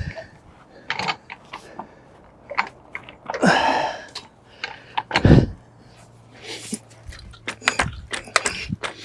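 Scattered clicks and knocks of things being handled, with a scraping rush about three and a half seconds in and one heavy thump about five seconds in, then a quick run of clicks near the end.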